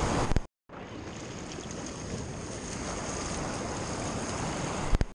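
Steady wash of ocean surf with wind noise on an action-camera microphone, broken twice by brief gaps of silence, about half a second in and at the end.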